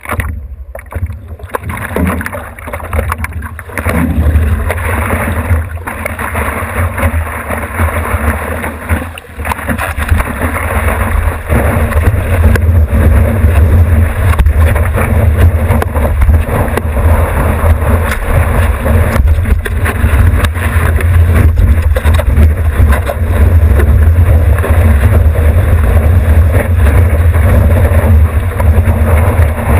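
Whitewater rushing past the nose of a stand-up paddleboard riding a breaking wave, with wind and water buffeting the board-mounted camera's microphone in a deep rumble. The rush builds about four seconds in and is loud and steady from about twelve seconds on.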